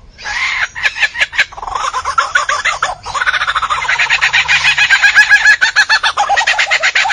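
A superb lyrebird singing its mimicking song: a loud, rapid run of repeated calls, several a second, broken by a few sharp clicks about a second in.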